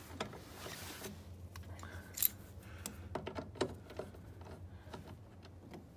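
A hand tool and fingers working the loosened mounting nut out of a plastic coolant reservoir under a car's hood. There is a brief rub at first, then scattered light clicks, with one sharper click about two seconds in.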